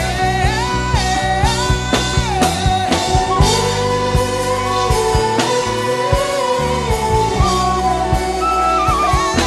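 Worship music: a wordless humming melody, with held notes that slide smoothly from one pitch to the next, over a backing of bass and a steady beat.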